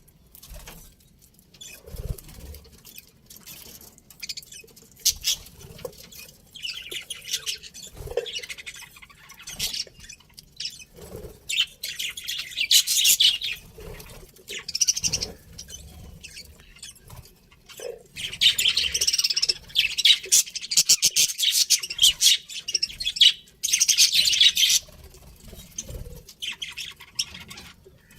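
Pet budgerigars chattering: bouts of scratchy, high chirps and warbling, loudest and most continuous in the second half, with soft knocks and rustles between bouts.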